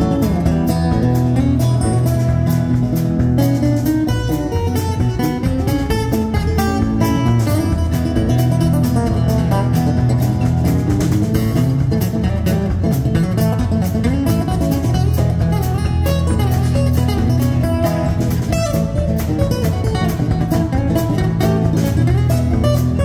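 Live acoustic band playing a driving blues number: two acoustic guitars strumming and picking over upright bass and drums, with a steady beat.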